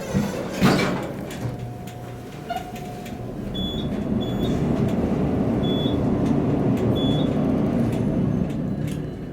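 Traction elevator car: the doors close with a knock under a second in, then the car runs downward with a steady low rumble that builds and eases near the end, with a few short high beeps partway through.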